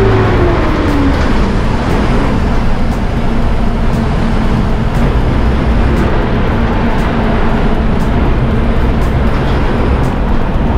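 Steady engine drone and road rumble of a city bus, heard from inside while it drives, with faint clicks or rattles now and then.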